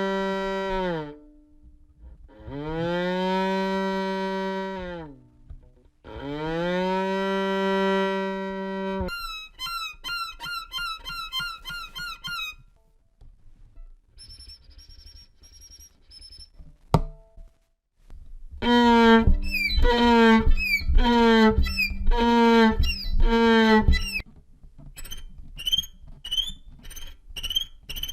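Violin imitating animal calls. Three long bowed notes bend up and then sag in pitch like a cow's moo. They are followed by runs of quick high chirping notes, a sharp click, a string of loud short downward-sliding notes, and more short high chirps.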